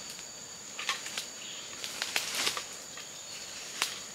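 Dry bamboo leaves and twigs crackling and rustling in a few short bursts as a person moves through the undergrowth, the loudest a little past halfway. Behind it, a steady high-pitched insect drone.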